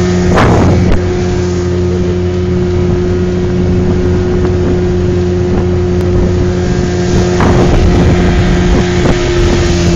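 Tiller-steered outboard motor on a small aluminum jon boat running steadily at cruising speed, with an even drone over the rush of water and wind.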